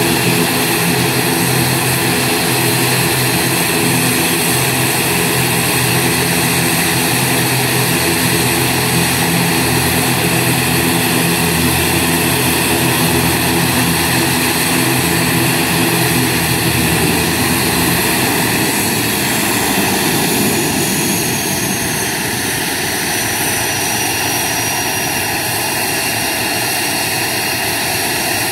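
ATR 72 twin turboprop engines running at ground idle as the airliner taxis to a stop, a steady propeller drone under a high turbine whine. About two-thirds of the way through, the low propeller hum drops away while the whine carries on.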